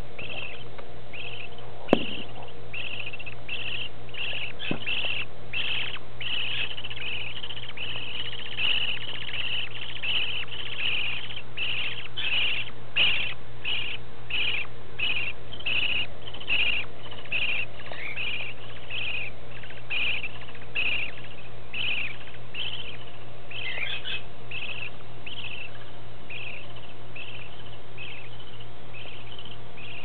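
Baby budgerigar chicks peeping: a long run of short, high calls, roughly two a second, the food-begging calls of hungry nestlings waiting to be fed. A low steady hum runs underneath.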